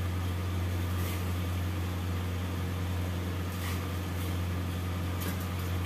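Thin potato slices dropped one by one into a steel pot of hot water, giving a few soft plops and splashes. Underneath is a steady low mechanical hum.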